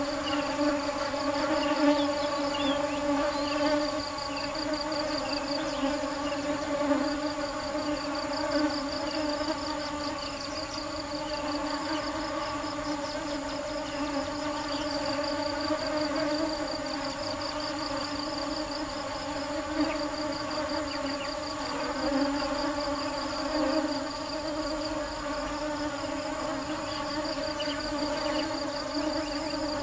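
Honeybees buzzing together in a steady, even drone with a low hum and overtones above it, over a rapid high-pitched pulsing chirp of insects.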